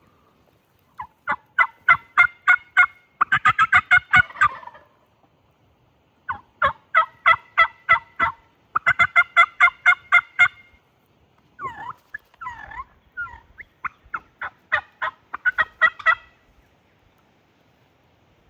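Turkey yelps in five runs of evenly spaced notes, some runs faster and denser than others, with a few scattered single notes about two-thirds of the way through.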